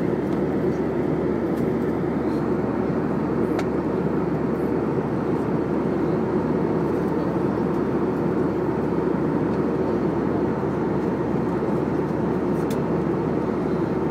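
Steady cabin noise of a jet airliner in cruise: the even rush of airflow and turbofan engines, heard from inside the cabin.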